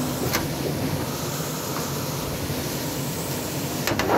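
Kitchen range hood extractor fan running steadily: a rush of air with a low hum. A brief knock from the phone being handled comes about a third of a second in, and a few more near the end.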